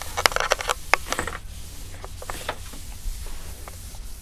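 A quick flurry of sharp clicks, taps and rubbing for the first second and a half or so, then a few scattered single clicks, like something being handled.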